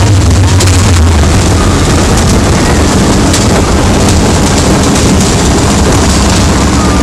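Loud, steady rumble on board a small roller coaster: the car running along its track, with wind buffeting the phone's microphone.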